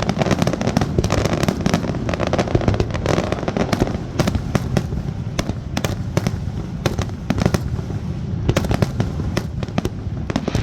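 Star mine fireworks barrage: a dense, unbroken run of shell bursts and crackles with a deep rumble underneath.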